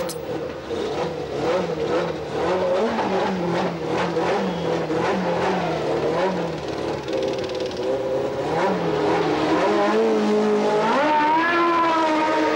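Formula One racing car engine running and being revved, its pitch rising and falling repeatedly, then climbing steadily near the end.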